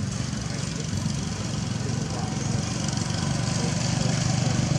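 A small engine running steadily, slowly growing louder.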